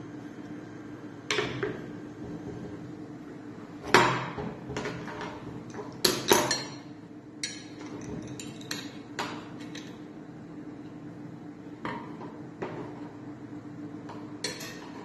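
Metal clicks and clanks as the metal head of a Conti Morsi CC100 coffee machine's lever arm is handled and worked on, with the loudest knocks about four seconds in and twice more around six seconds in. A steady low hum runs underneath.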